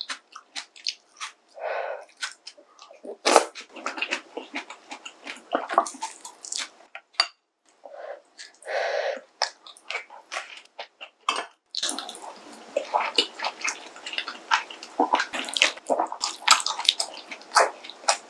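Close-miked eating of pork kimchi stew with ramen noodles: wet slurping of noodles and broth, with chewing and sharp mouth clicks. The slurping is longest and densest in the second half.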